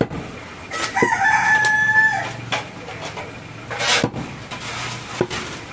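A rooster crows once, about a second in, one pitched call lasting a little over a second. Around it, a cleaver strikes meat on a wooden chopping block in a few sharp knocks, at the start, at about four seconds and again after five.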